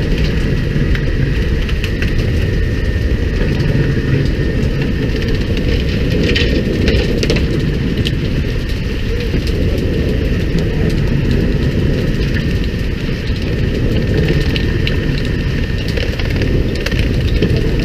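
Steady low rumble of a fishing boat under way, its engine and the sea around the hull, with a few light knocks about six to seven seconds in.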